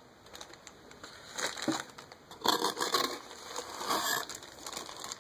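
Clear plastic packaging bag being handled and crinkling, in a few irregular bursts.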